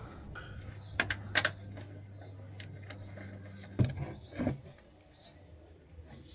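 A small power tool's motor runs with a steady low hum while unfastening the bolts of the underbody aero shield, with sharp clicks along the way. It stops with a knock a little under four seconds in, and a second knock follows.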